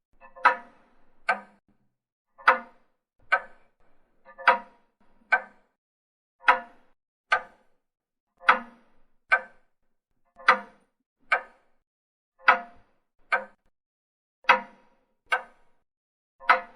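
Clock ticking in an uneven tick-tock: a loud tick and a slightly softer tock about 0.8 s apart, the pair repeating every two seconds.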